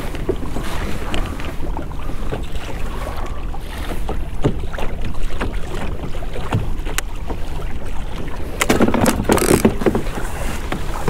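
Wind buffeting the microphone over water lapping at a kayak, with scattered small knocks and a brief louder rush of noise about nine seconds in.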